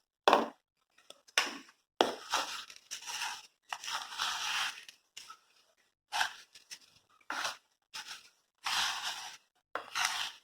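A utensil stirring and scraping through sugar and a dry flour and cocoa mix in a bowl, in irregular gritty strokes with short pauses between them.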